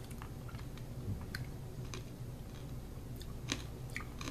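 Faint mouth sounds of hard candies being sucked, with scattered small clicks of candy against teeth, over a low steady hum.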